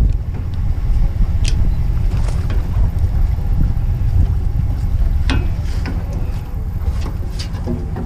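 A steady low rumble under a handful of short, sharp metallic clicks from the trailer winch hook and strap as they are worked free of the boat's bow eye.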